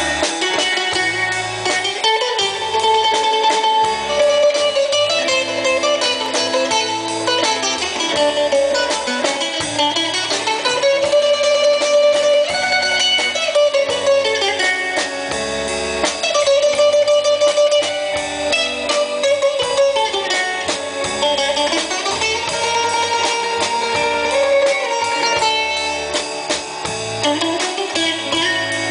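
Live instrumental Greek folk music: a bouzouki, an electric guitar, an electric bass and a drum kit playing together, with a plucked melody that slides between notes over a moving bass line and a steady beat.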